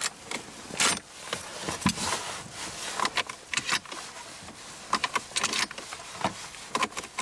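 A camouflaged Benelli Vinci semi-automatic 12-gauge shotgun being handled, giving irregular sharp metallic clicks and rattles.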